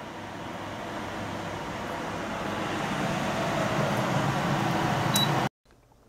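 Samsung CM1929 commercial microwave oven running at full power with both magnetrons on: a steady noisy hum that grows gradually louder, then cuts off abruptly near the end.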